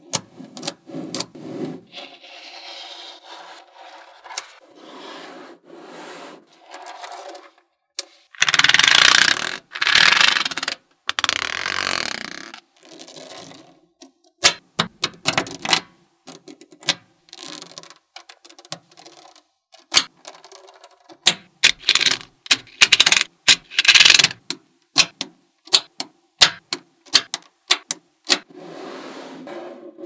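Small neodymium magnetic balls clicking and snapping together as rows and strips of them are laid down and joined on a hard tabletop. Two longer stretches of dense rattling and scraping come as whole strips of balls are slid or rolled into place.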